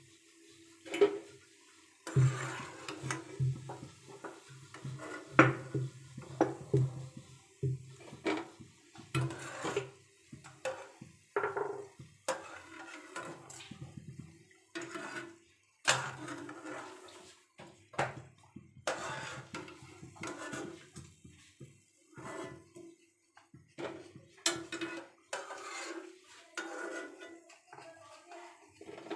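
A steel ladle knocking and scraping against a frying pan and a steel plate in irregular clinks as fried pieces are lifted out of the hot oil.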